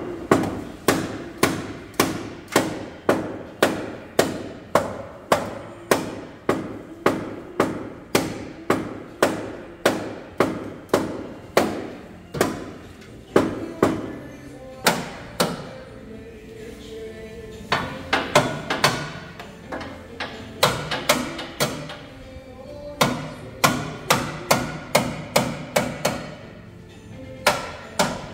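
Hammer blows on the crash-damaged car's front-end metal. The blows come steadily at about three a second for roughly twelve seconds, then in shorter irregular bursts with pauses between.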